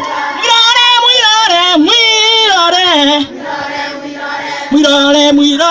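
A group of people singing a song together, one strong voice carrying the melody. The singing is loud for about three seconds, eases into a quieter stretch, then comes back in loudly near the end.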